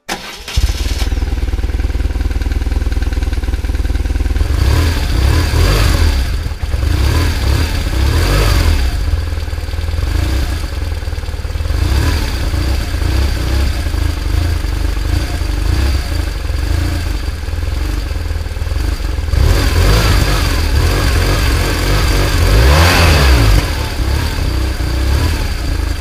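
BMW R 1100 motorcycle's flat-twin boxer engine running with a deep, uneven beat, revved in blips that rise and fall a few times about 5 to 9 seconds in and again about 20 to 23 seconds in.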